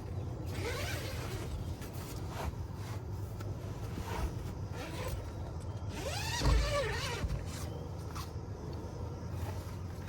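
Steady low rumble of a vehicle running, with short voice-like sounds about half a second in and again around six and a half seconds in.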